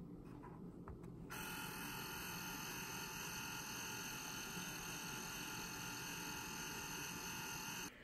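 Dymo LetraTag handheld label maker printing a label. A few faint clicks are followed, about a second in, by a steady electric whine made of several even tones, which runs for about six seconds and cuts off suddenly near the end.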